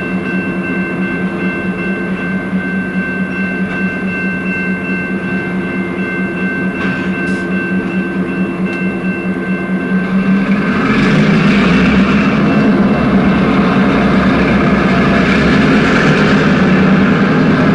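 Diesel-hauled freight train running with a steady engine drone and a thin high whine. About ten seconds in it gets louder, and a broad rush of rolling noise builds as the train comes close.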